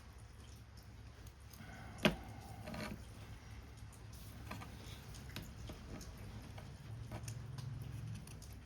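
Small clicks and taps of paper-craft work, paper and tools being handled, with one sharp click about two seconds in, over a low steady hum.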